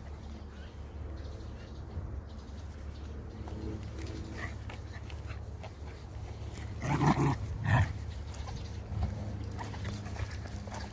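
Small dog making two short vocal sounds in quick succession about seven seconds in, over a steady low background hum.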